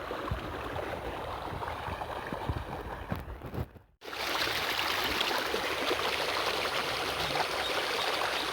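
Running water in a small channel, a steady rushing hiss. It cuts out briefly about four seconds in and comes back brighter.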